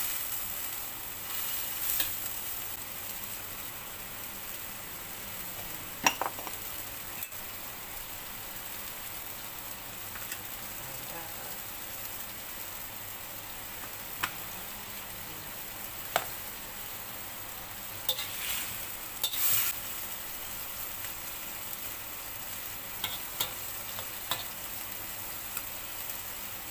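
White gourd and carrot strips sizzling in a wok as they are stir-fried, a steady frying hiss. Now and then the metal spatula clicks and scrapes against the wok, with a cluster of clinks about two-thirds of the way through.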